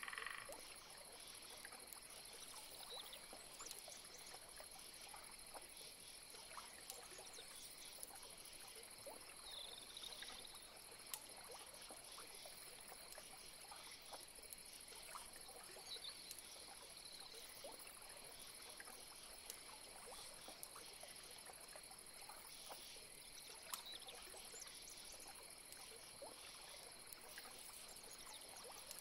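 Faint swamp ambience: a steady high-pitched insect drone, with frogs calling in short clicks and a few brief calls scattered through.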